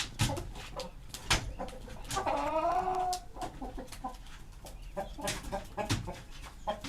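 Chickens clucking, with one drawn-out call that rises and then holds about two seconds in, and scattered short clicks.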